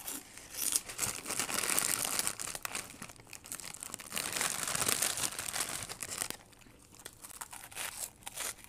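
Plastic chip packets crinkling as hands rummage in them and pull out chips: dense crackling for most of the first six seconds, then quieter scattered crackles near the end.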